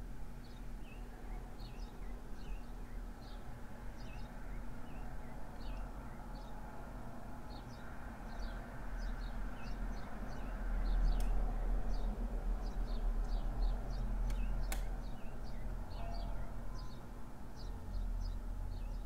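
Small birds chirping in quick, repeated short calls over a low steady rumble, with two sharp clicks in the second half.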